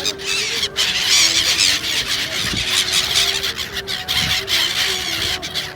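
A flock of seagulls calling, many high squealing calls overlapping densely.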